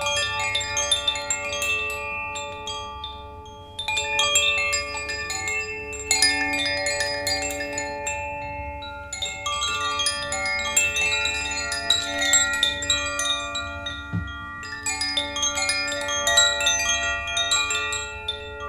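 Hanging chime set shaken by hand in a handful of clusters a few seconds apart. Many bright metal tones ring and overlap, then fade slowly.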